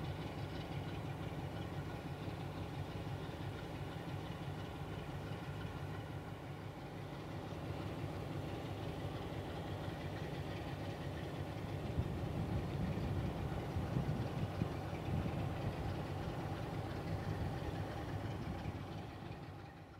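Electroputere LDE2100 (060-DA) diesel-electric locomotive's diesel engine idling steadily, fading out at the end.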